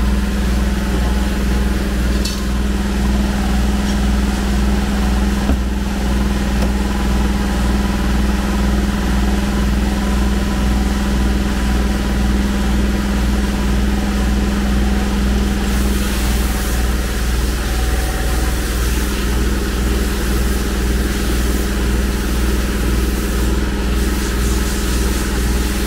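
Dry media blast cabinet in use on an aluminium cylinder head: a steady, loud machine hum with a hiss of blasting air over it. The hiss grows a little stronger about two-thirds of the way through.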